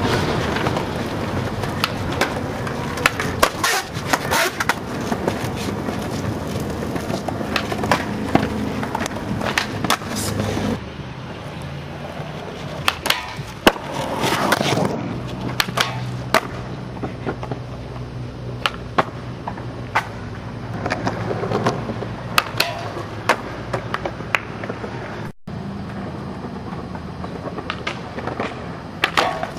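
Skateboard wheels rolling on concrete, with sharp clacks of boards popping and hitting the ground, the loudest about a third of the way in.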